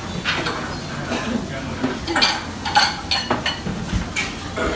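Kitchen clatter at a ramen counter: crockery bowls and utensils being handled, with repeated irregular clinks and knocks, some ringing briefly.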